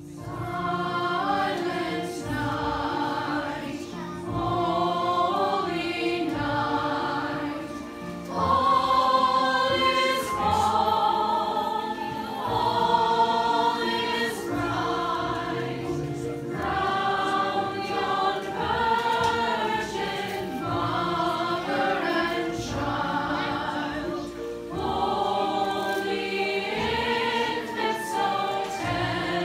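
A choir singing, in phrases of a few seconds each.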